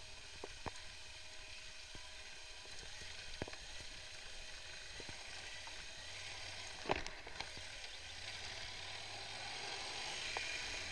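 Yamaha XT1200Z Super Ténéré adventure motorcycle riding over a rough dirt and gravel trail, heard through a bike-mounted camera as a steady hiss with scattered knocks and clicks as the bike jolts over the ground. It grows a little louder near the end as the bike reaches the paved road.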